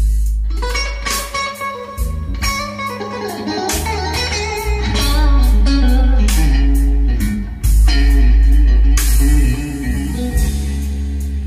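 Guitar-led recorded music with heavy bass, played back through a pair of Celestion Ditton 44 three-way speakers driven by a 4xEL34 valve amplifier.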